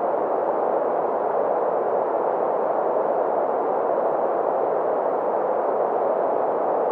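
Steady green noise: a continuous, even hiss with its energy in the mid frequencies, around 500 Hz, thinning out in the deep bass and the treble.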